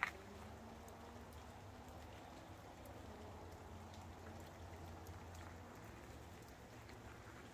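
A single sharp click at the start, then a faint, steady low hum with a few scattered faint ticks.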